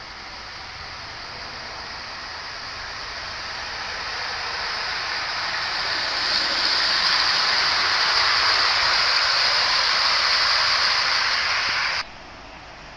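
Hornby OO gauge model train, a blue streamlined A4 locomotive with coaches, running along the track: a steady hiss of wheels and motor that grows louder as it approaches, holds loud, then cuts off suddenly near the end.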